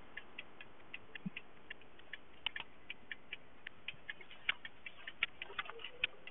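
Car turn-signal indicator ticking steadily, about four sharp clicks a second, over the quiet hum of the moving car.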